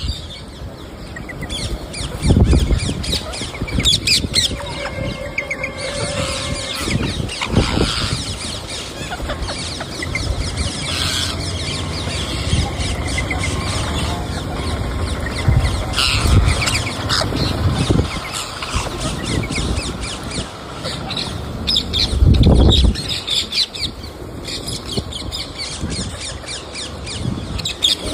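Pet parrot eating fruit: continuous crunchy pecking and chewing clicks, with short squawks and chirps now and then. There are a few low thumps, the loudest about two and a half seconds in and about twenty-two seconds in.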